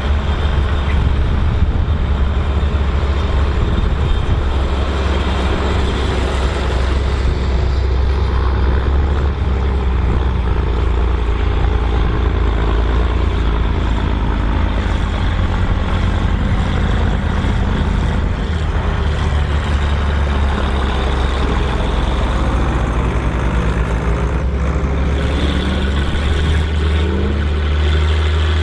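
Volvo BM 2654 tractor's diesel engine running steadily with a deep rumble, its note rising a little near the end.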